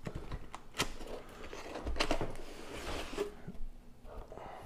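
Long cardboard box being opened by hand: a few sharp knocks and clicks against it, then the lid sliding and rubbing open for about a second.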